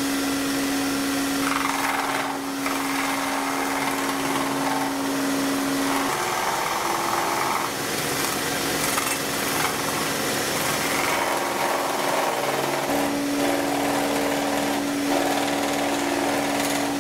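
Benchtop scroll saw running and cutting thin plywood: a steady motor hum under the rasp of the reciprocating blade through the wood. The rasp comes and goes as the piece is fed and turned.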